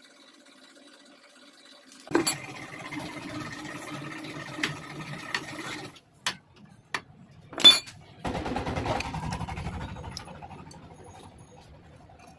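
A small motor-driven tool runs in two bursts of a few seconds each, the first starting suddenly about two seconds in. Between the bursts come sharp metallic clicks and one loud clank, as engine parts come off during a teardown.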